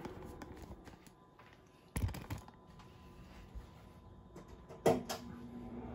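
Quiet light clicks and a sharp knock about two seconds in. Near the end comes another sharp click as a kitchen fan is switched on, and its steady hum and rush of air start and grow louder.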